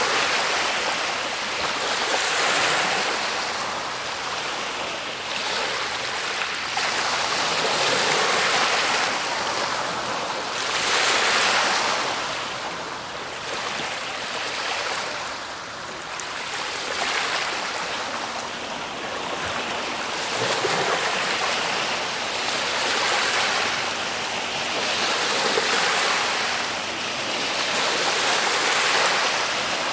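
Ocean waves breaking and washing ashore, the surf swelling and falling back every few seconds in a steady rush of water.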